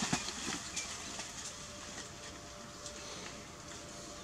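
Leaves and twigs rustling, with a few light clicks and snaps, as a monkey climbs through a tree, over a faint steady hum.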